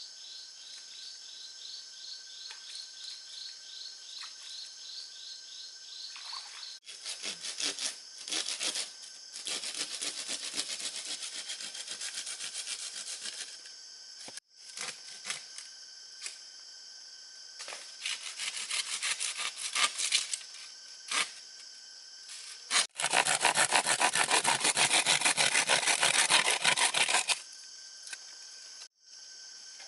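Hand saw cutting through wood in quick back-and-forth strokes, in several separate bursts with sudden breaks between them. Insects chirp at a steady rate of about three to four a second before the sawing starts, and a steady insect drone carries on under it.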